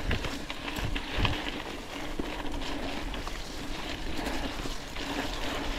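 Trek Supercaliber mountain bike being ridden over a rough, muddy forest trail: steady rolling noise from the tyres with scattered knocks and rattles.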